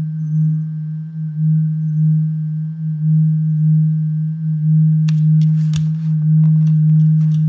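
Loud, steady low feedback hum, one unchanging tone, from the live stream's own audio playing back into the microphone. A few sharp clicks and taps come about five seconds in and again near the end.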